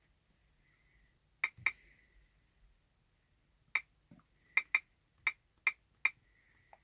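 Key clicks from typing a password on a PeopleNet in-cab tablet's touchscreen keypad: about eight short, sharp clicks at an uneven pace, two in the first two seconds and the rest from the middle on.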